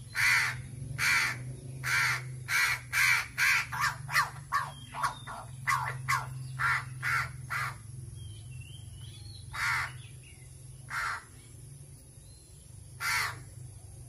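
A hungry crow cawing while being hand-fed: a rapid run of short caws, quickening, for about seven seconds, then three single caws a second or two apart.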